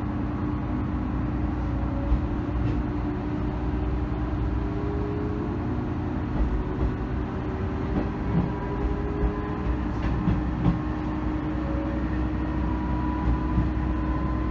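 Diesel railcar pulling away from a station, heard from inside the car: a steady engine hum with tones slowly rising in pitch as it gathers speed. A few clacks of wheels over rail joints and points break through.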